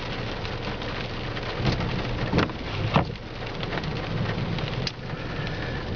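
Rain pattering steadily on a car's roof and windshield, heard from inside the car, with many small drop clicks and a few louder single hits.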